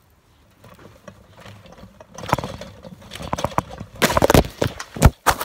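A phone lying on a trampoline mat being bounced and jostled by someone jumping: a run of knocks and thumps against the microphone that grow louder and closer together, the hardest hits near the end as the phone is thrown about and falls off.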